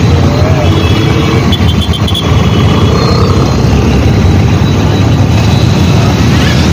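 Dense road traffic of motorcycles and other vehicles: a loud, steady rumble of engines, with a faint run of short high beeps about two seconds in.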